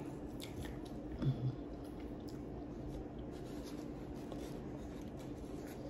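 Quiet room with a steady low hum, faint rustling and light clicks of hands handling food at a table, and a brief low vocal sound about a second and a half in.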